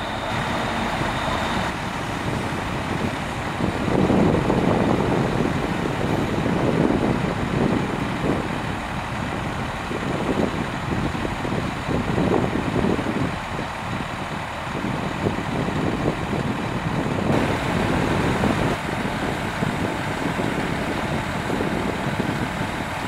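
Heavy diesel engine of a Pierce aerial ladder fire truck running at idle: a steady, fairly loud rumble that swells louder at times.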